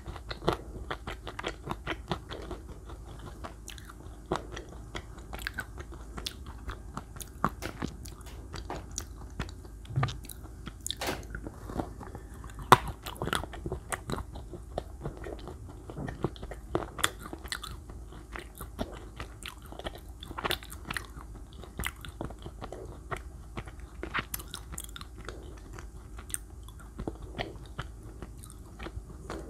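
Close-miked eating of chocolate cake: a steady run of irregular sharp biting and chewing clicks and crunches, with one louder click a little before halfway.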